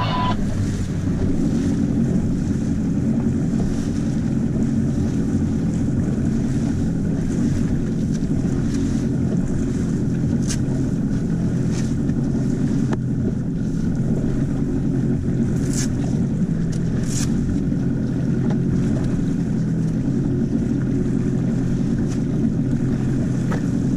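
A small pilothouse boat's engine running steadily underway, with the hull moving through choppy water and wind buffeting the microphone. A few sharp clicks come between about ten and seventeen seconds in.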